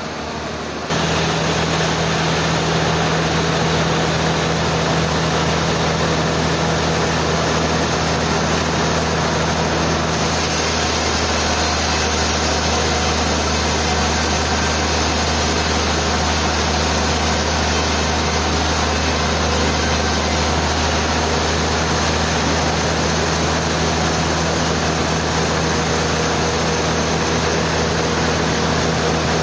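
Sawmill machinery running: a loud, steady mechanical drone with a low hum, which comes up abruptly about a second in and holds steady, changing slightly in its higher pitch partway through.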